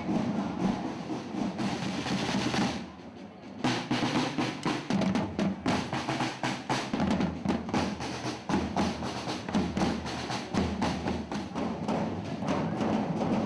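Several rope-tensioned marching drums played together in a quick, dense beat with rolls. The drumming drops away briefly about three seconds in, then carries on.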